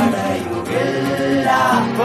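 Background music: a Malayalam song with sung vocals, the voice held and gliding between notes.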